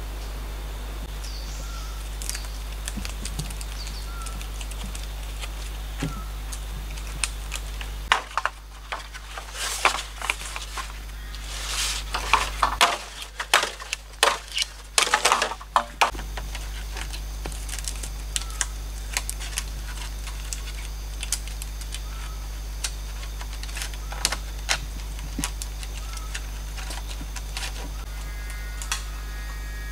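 Machete working green bamboo poles: a dense run of sharp knocks and scrapes lasting about eight seconds in the middle. Around it is steady forest ambience with scattered small ticks and a short call repeating every couple of seconds.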